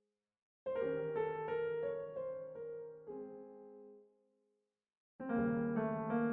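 Outro piano music: a phrase of held notes starts about half a second in and dies away, then after a brief silence a second phrase begins near the end.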